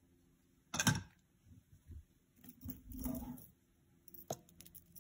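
Handling noise as jewelry is moved about on a cloth-covered table: a sharp knock about a second in, a short rustle around three seconds, and a light click a little after four seconds.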